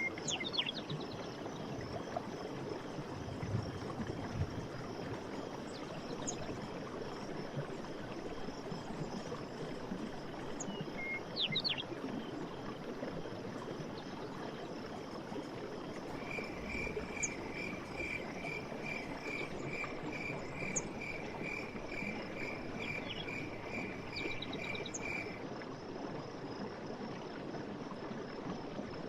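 Forest ambience: running stream water as a steady wash, with insects trilling and birds giving short chirps now and then. Partway through, a call repeats evenly about twice a second for roughly nine seconds, then stops.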